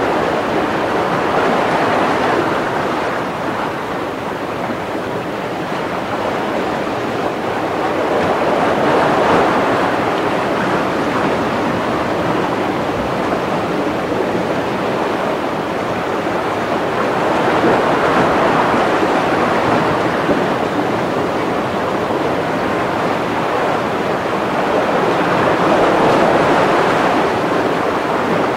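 Steady rushing of water, like surf, swelling and easing in slow surges about every eight seconds.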